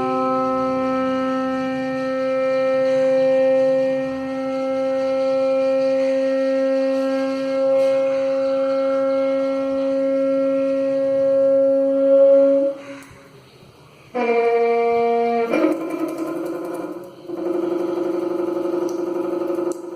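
A slightly opened urinal water tap giving off a loud, steady horn-like hoot with many overtones. About thirteen seconds in it cuts out, sounds again briefly, then comes back rougher and buzzier.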